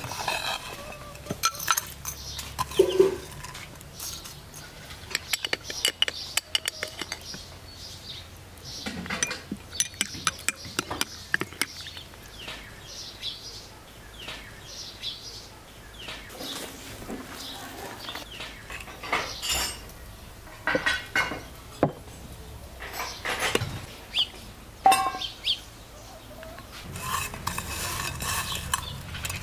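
Metal spoon clinking and scraping against glass dessert cups and a cut-glass dish as crushed biscuit crumbs are scooped and spooned in, in many short, irregular clinks.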